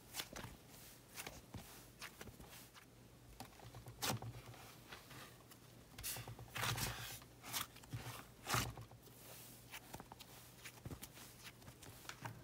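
Fluffy cloud slime being stretched and squished by hand: soft, irregular crackling and tearing, with louder clusters of crackles about four seconds in and again around six to nine seconds.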